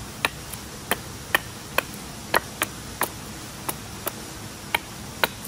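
Short, sharp clicks and knocks, irregularly spaced at about two or three a second, as a piece of wood is split and shaved with a knife to make a bow drill spindle.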